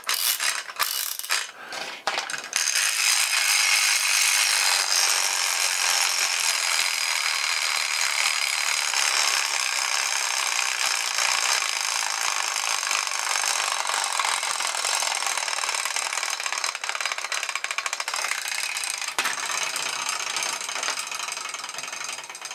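3D-printed plastic clockwork motor: a few seconds of ratchet clicks as it is wound with its key, then a fast, even clicking rattle of its plastic gear train as the spring runs down. The rattle fades near the end.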